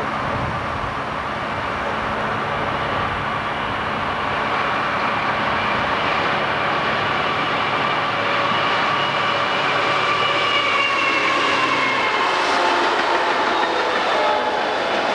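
A multi-unit diesel-electric freight locomotive consist in dynamic braking on a downgrade, approaching and passing: the steady whine of the dynamic brakes over the rumble of the train. The sound grows louder as the units come closer, and the whine drops slightly in pitch as they pass.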